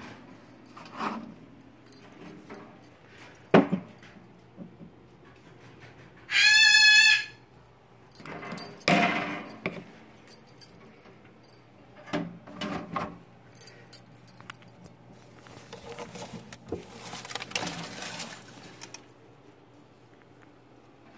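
A loud pitched animal call lasting about a second, about six seconds in, among rustling and knocking from handling.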